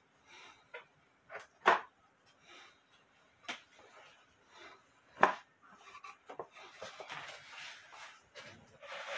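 A few sharp knocks, the loudest two about 1.7 and 5.3 seconds in, then a stretch of rubbing and rustling as the wooden drop dial clock case is handled and lifted.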